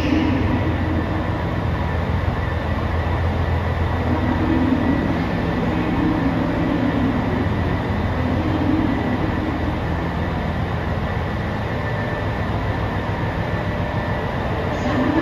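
Diesel engines of a JR Hokkaido limited-express railcar train running steadily with a low hum.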